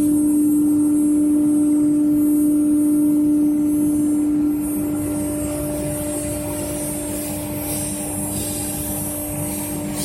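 CNC router spindle running with a steady high whine while carving EPS foam, along with the hiss of the cut. It is louder for the first half and drops a little about halfway through.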